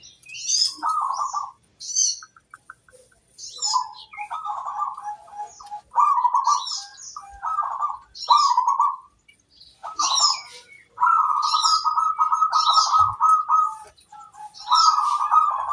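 Zebra dove (perkutut) cooing: a run of short trilled coos, then one long trilled coo about eleven seconds in. Short high chirps from other small birds come in between the coos.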